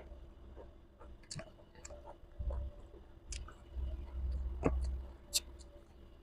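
Close-up chewing of a mouthful of food, with scattered sharp mouth clicks and a few soft low thumps; the loudest clicks come near the end.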